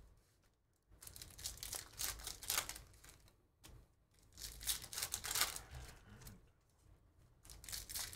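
Foil wrappers of Bowman University Chrome basketball hobby packs crinkling in several bursts as the packs are handled and one is torn open by hand.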